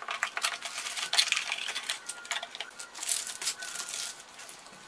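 Plastic packaging crinkling and rustling as it is unpacked and handled, with many small crackles and clicks.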